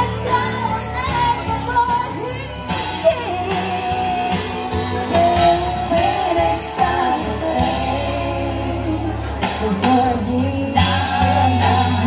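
Live band playing a pop-rock song through PA speakers: a woman singing over amplified electric guitar and a steady bass line.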